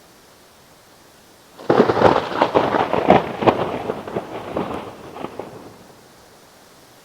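A close thunderclap: a sudden crackling crash of many sharp cracks about a second and a half in, fading over about four seconds, over a steady hiss.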